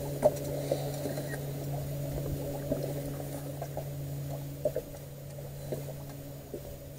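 A boat's motor running steadily, a low, even hum, with a few faint knocks.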